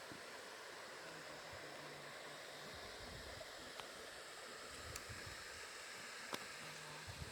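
Steady rush of a high waterfall's falling water, with a few faint sharp clicks.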